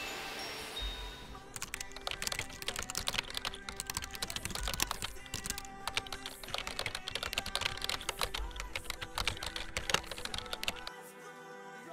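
Rapid typing on a computer keyboard, a dense run of key clicks that starts about a second and a half in and stops shortly before the end, over soft background music.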